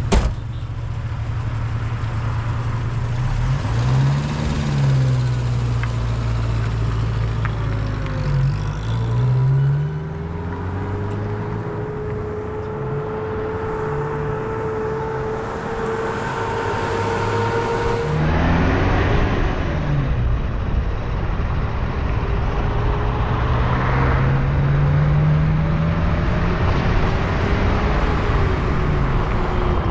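Vehicle engine running under way, with road noise. The engine's pitch climbs and levels off several times as it accelerates through the gears. A sharp click comes right at the start.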